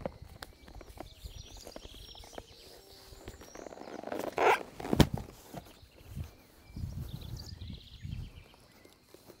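A rider climbing down from a saddled horse onto soft dirt: a rustling burst and a single sharp click about halfway through, then a run of soft thuds from feet and hooves shifting on the ground.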